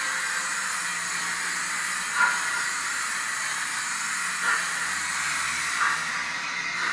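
HO scale model steam locomotive's steam sound: a steady hiss with three short chuffs, as the engine starts to creep forward.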